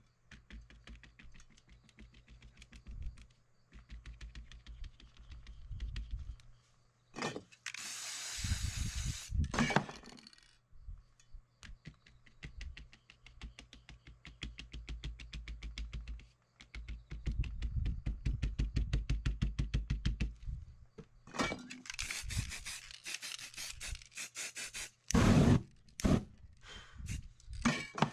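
Rapid dabbing and rubbing strokes of a crumpled rag or sponge against a spray-painted board, texturing foliage and cloud, with a few short hisses of a spray-paint can about eight seconds in and again near the end.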